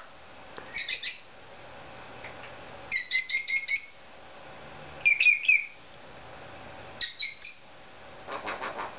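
Cape parrot calling in five short bursts of rapid repeated high chirps, about two seconds apart.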